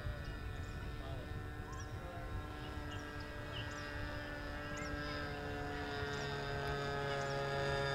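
80 mm electric ducted fan of a Freewing L-39 Albatros RC jet with its throttle cut, giving a faint multi-tone whine that sinks slowly in pitch as the jet glides in to land. A lower tone joins it near the end, and a bird chirps about once a second behind it.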